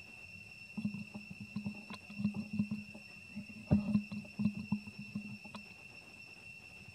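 Steady high-pitched insect drone, with a run of soft low thumps and rustles from about one to five and a half seconds in, the loudest near four seconds.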